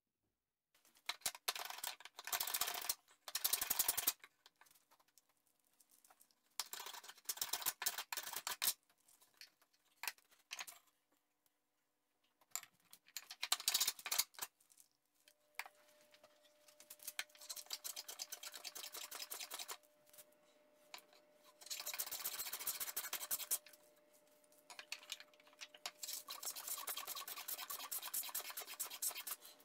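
Hand plane taking shavings off a wooden chair stretcher blank as it is tapered, in a series of strokes, each a rasping hiss lasting one to three seconds with short pauses between.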